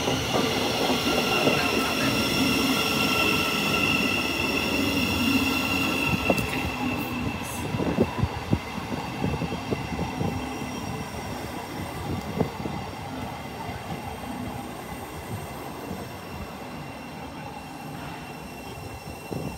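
Thameslink Class 700 electric multiple unit alongside the platform: a high electric whine of several steady tones over a rumble of wheels and running gear. The whine fades after about six seconds and the whole sound grows quieter.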